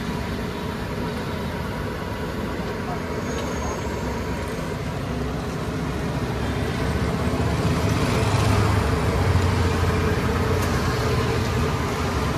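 Road traffic running steadily beside a roadside street stall, with a vehicle passing louder about eight to ten seconds in.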